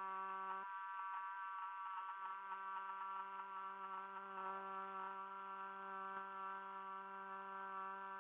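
Faint, steady background drone holding one low pitch with many overtones, unchanging throughout.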